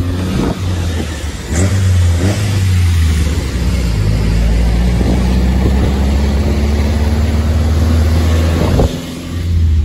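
Tofaş car's four-cylinder engine and exhaust running under throttle while driving in low gear. The engine note climbs slowly through the middle, broken by brief dips in level and a few short sharp cracks as the throttle is lifted and reapplied.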